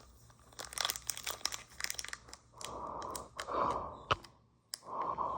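Foil Pokémon card booster pack being torn open: a crackling crinkle of the wrapper for the first couple of seconds, then three longer tearing strokes.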